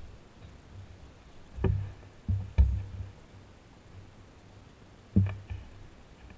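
A few dull thumps and knocks, four or five in all, bunched about a third of the way in with one more near the end.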